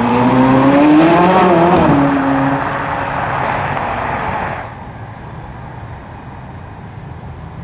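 Ferrari 458 Italia's V8 accelerating away, its note climbing about a second in and dropping back before fading. About halfway through, the sound cuts suddenly to a quieter, steady low engine rumble.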